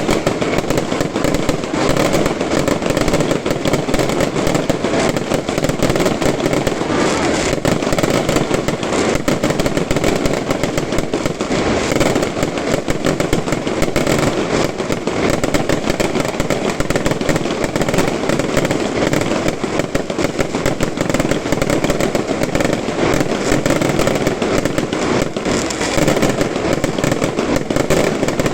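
Fireworks display: a dense, continuous barrage of bangs and crackles, loud throughout.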